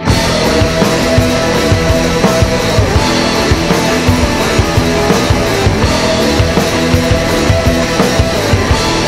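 Loud indie/punk rock band recording: the full band of electric guitars, bass and drums comes in all at once and plays on with a steady driving beat.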